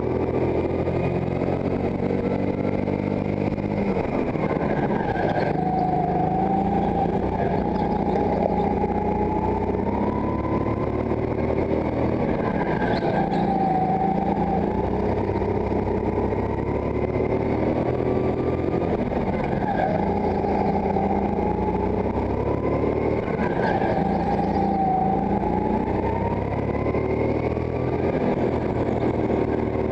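Go-kart engine heard onboard while lapping, its pitch dropping as the kart slows for each corner and climbing again as it accelerates out, every several seconds.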